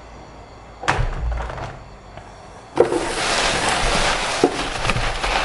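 Film sound effects: a sudden hit with a deep rumble about a second in, then a loud rushing noise that starts near the middle and keeps going, with deep thumps under it.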